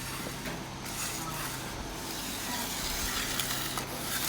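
Hand finishing tools scraping and rubbing over wet exposed-aggregate concrete, a gritty hiss in repeated strokes, over a steady low hum.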